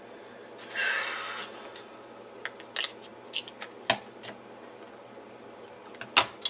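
Plastic clicks and taps from handling a mobile phone's battery and battery bay as the battery is fitted in, beginning with a brief rubbing rasp about a second in. The sharpest clicks come near the middle and just before the end.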